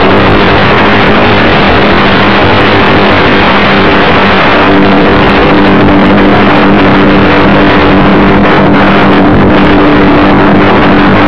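RC model airplane's motor and propeller droning steadily in flight under loud wind rush, heard from a camera mounted on the plane.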